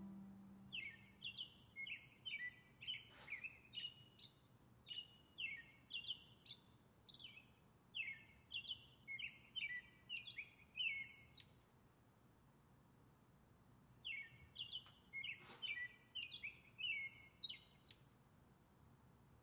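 A songbird singing a rapid string of down-slurred chirps, in a long bout of about ten seconds, then a pause of a few seconds, then a shorter bout. The last note of the music dies away just at the start.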